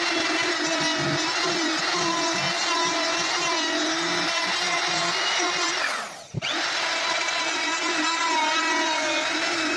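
Power drill running steadily at high speed; about six seconds in it dies away briefly, then starts up again.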